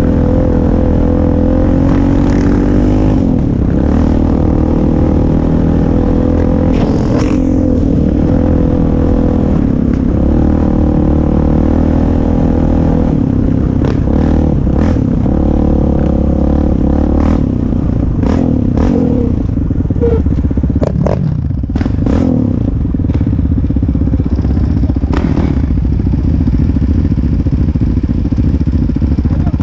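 ATV engine running close to the microphone as the quad rides along a sandy dirt trail, its pitch shifting with the throttle a few times. Short knocks and rattles of the machine jolting over the trail come through, mostly in the second half.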